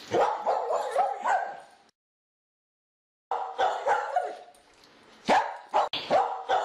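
A dog barking in quick, short, repeated barks. The sound cuts out completely for about a second and a half about two seconds in, then the barking starts again.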